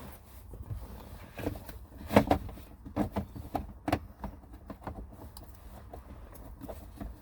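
Irregular clicks and knocks of hands fitting the gear shift knob and its plastic trim in a car's centre console, the loudest knock about two seconds in.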